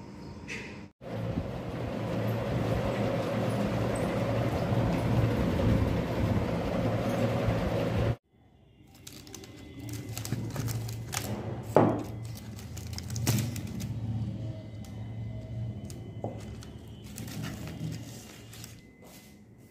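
A steady rushing noise for about seven seconds, then, after a sudden cut, painted clay diyas being unpacked by hand from a cardboard box: plastic wrapping rustling, with a few sharp clicks as the clay lamps knock together.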